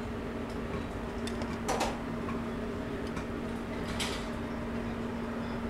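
Light clinks of a utensil against a metal sauté pan as pasta and sauce are spooned out for plating, a couple just under two seconds in and one about four seconds in, over the steady hum of kitchen machinery.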